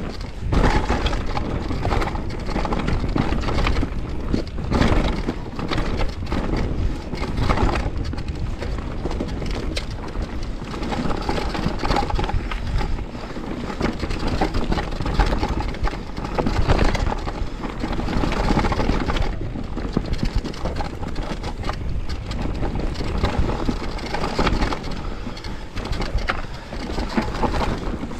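Conway WME enduro mountain bike on Schwalbe tyres riding down a steep, rough trail: a constant rush of tyre and trail noise with dense knocks and crunching impacts, the sharpest every few seconds.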